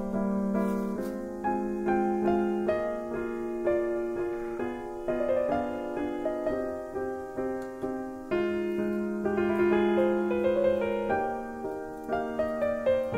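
Background piano music: a gentle melody of single notes and chords, each struck and left to ring.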